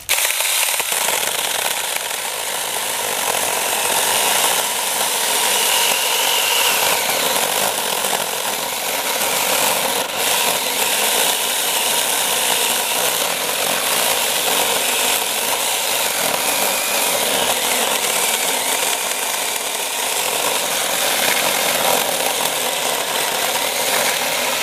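EnBrilite battery-powered mini chainsaw with a 6-inch bar cutting through a rotten log, its chain rasping steadily through the wood over the electric motor's whir. The sound starts abruptly at the trigger pull and holds an even level throughout the cut.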